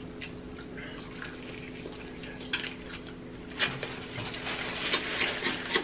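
Mouth sounds of people eating fried chicken drumsticks: wet smacking, chewing and small crunches, sparse at first and more frequent in the second half. A faint steady hum runs beneath.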